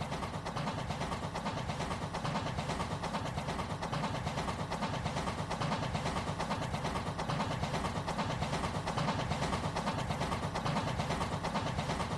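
Rail King battery-powered toy train running along its track: a steady rattling clatter of the small motor and wheels.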